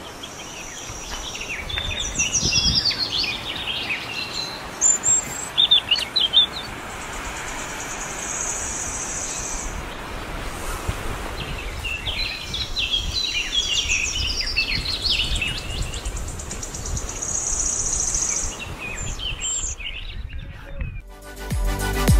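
Wild birds chirping and calling in quick, varied phrases, over a steady high buzz that comes and goes every few seconds. Electronic music starts near the end.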